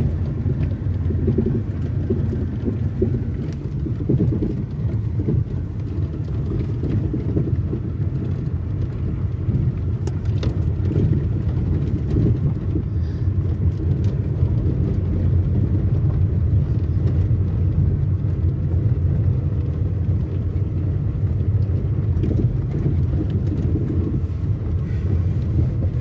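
Road noise inside a car driving along an unpaved dirt track: a steady low rumble of engine and tyres, with a few faint clicks.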